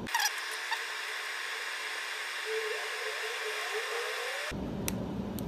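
Steady hiss with no low sounds in it, ending abruptly about four and a half seconds in.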